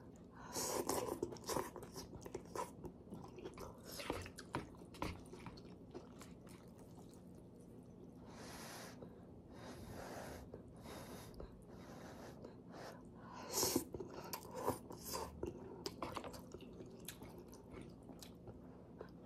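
Close mouth sounds of eating hot instant tonkotsu ramen noodles: chewing with many small wet clicks, and a few breathy blows on the noodles to cool them.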